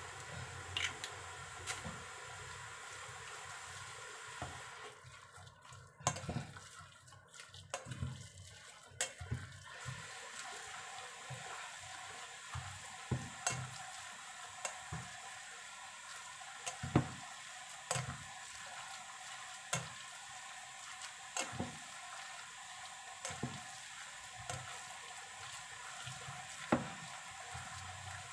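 Ground-meat mixture being stirred with a plastic rice paddle in a stainless steel bowl: irregular knocks and scrapes of the paddle against the bowl.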